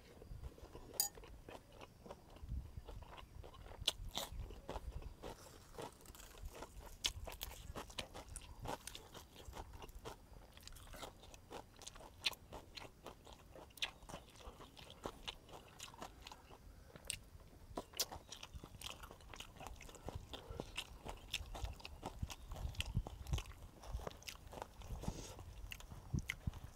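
A man eating duck larb close to the microphone: chewing with many sharp crunches, irregular and spread throughout.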